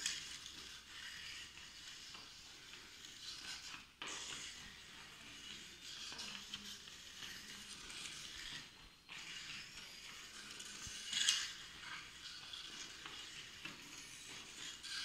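Field hockey stick dribbling a ball across a tiled floor: faint, continual scraping with light knocks of stick on ball, and one louder, sharper sound about eleven seconds in.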